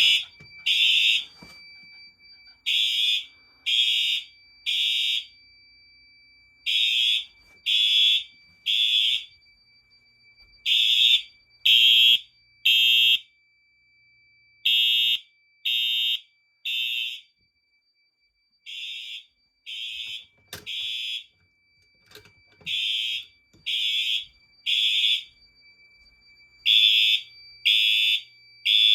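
Fire alarm horns sounding the temporal-three evacuation pattern: three loud beeps about a second apart, then a pause, repeating every four seconds. A faint steady high tone runs underneath, and one group of beeps about two-thirds through is quieter.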